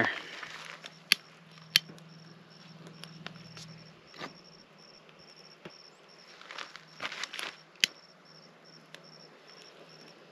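A cricket chirping steadily, about two short chirps a second, over sharp pops and cracks from a small wood campfire. Some rustling about seven seconds in as sticks are handled on the fire.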